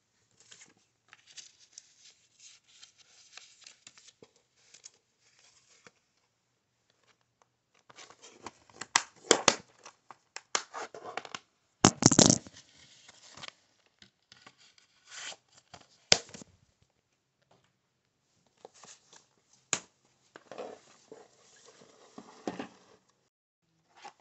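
Handling noise from plastic DVD and Blu-ray cases being moved about by hand: rustling and crinkling with scattered clicks and clacks. The loudest clacks come about nine and twelve seconds in.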